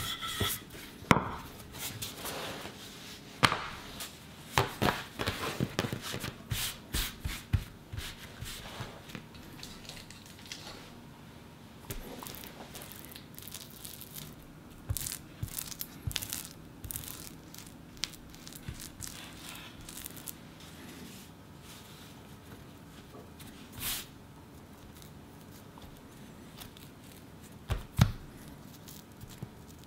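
Kitchen handling sounds of pastry-making: a wooden rolling pin rolling dough on a wooden board with scattered knocks and rubbing, then softer scraping as a silicone spatula spreads adzuki bean paste over dough, and hands pressing dough sheets down, with a thump near the end.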